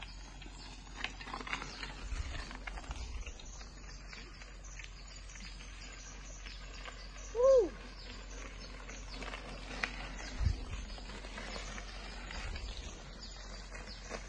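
Tropical forest ambience: a steady hiss of insects and birds with scattered faint ticks and a few low bumps. About halfway through, one short pitched call rises and then drops in pitch. It is the loudest sound.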